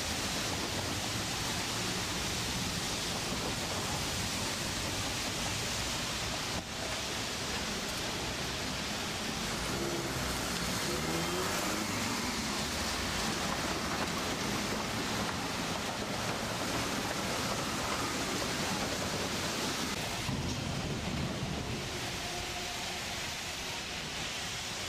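Street trams moving through a stop in the rain: a steady hiss of rain and wet street noise, with faint gliding motor tones as a tram pulls away about ten seconds in.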